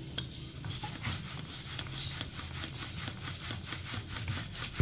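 Rolling pin rolling out a stuffed mooli paratha on a round wooden board: a quick, even run of rubbing strokes as the pin passes back and forth over the dough and wood.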